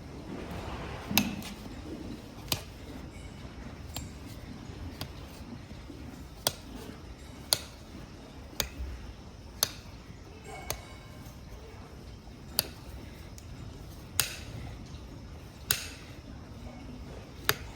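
Hoof nippers snapping through a horse's overgrown hoof wall, one sharp crack per cut, about a dozen cuts at roughly one every second or so, as the excess hoof is trimmed back.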